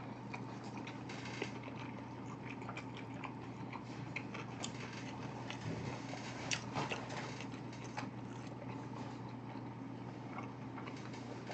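A person chewing a mouthful of food close to the microphone, with faint scattered clicks and smacks over a steady low hum.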